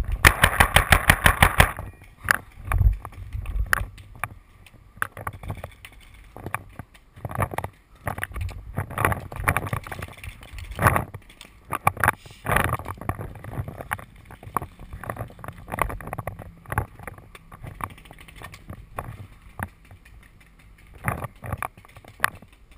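A paintball marker fires a rapid string of shots, about eight a second, for roughly the first two seconds. Scattered single knocks and thuds follow.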